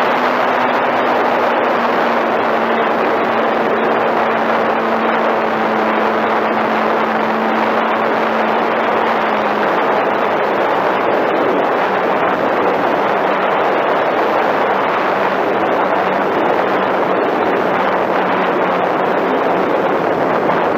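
Onboard sound of a Flyzone Switch RC plane in flight: a steady rush of wind over the airframe, with the electric motor and propeller humming under it. The motor's pitch drops a step about halfway through as the throttle is eased back.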